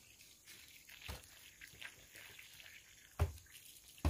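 A few short, faint knocks and thuds over a quiet background: a small one about a second in, then two stronger ones near the end.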